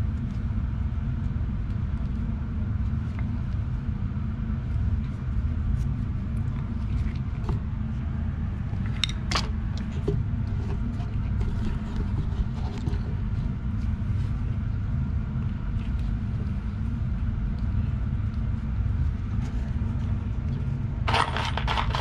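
Steady low background rumble, with a few light clicks about nine seconds in and a brief louder rattle of small parts near the end.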